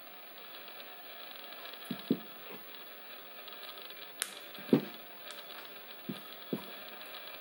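About half a dozen dull knocks and light clicks as jewelry pliers and rhinestone cup chain are handled and set down on a fabric-covered table. The loudest knock comes just under five seconds in, over a steady faint hiss.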